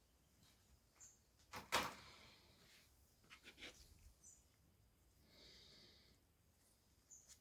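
Quiet handling of the tablet's box and packaging: a few soft clicks and rustles, the loudest a sharp click or knock a little under two seconds in, then a short run of light ticks.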